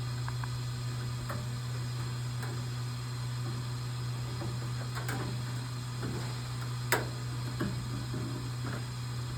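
Light clicks and handling noises as wire leads are pushed into the ballast's terminals, with a sharper click about five seconds in and another, the loudest, about seven seconds in. A steady low hum runs underneath.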